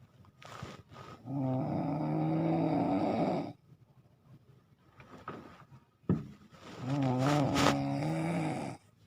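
A person snoring loudly: two long snores of about two seconds each, each holding a steady low pitch, with short breathy sounds between them.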